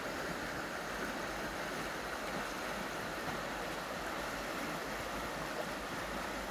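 A small river flowing steadily, its water rushing over and around fallen tree trunks.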